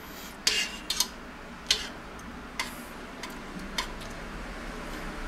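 Small spoon stirring soup in a stainless steel pot, clinking against the side of the pot about six times at uneven intervals.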